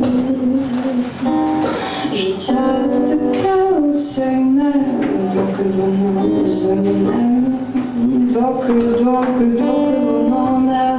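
A woman singing a slow song into a microphone, holding long notes that step from pitch to pitch.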